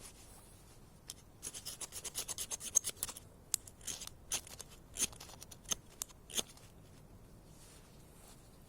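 Steel edge scraping a fire-starter rod in short, high-pitched rasping strokes. A fast run of scrapes for about two seconds, then about eight slower, separate strokes.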